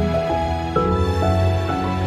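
Soft, slow instrumental background music of sustained chords, with a new chord coming in about three-quarters of a second in.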